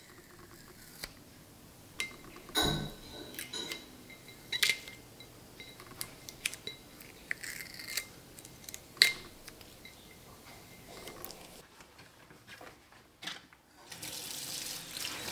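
Glass jars and wooden lids being handled: scattered light clinks and taps, some with a short glassy ring. About fourteen seconds in, a kitchen tap starts running into a stainless steel sink.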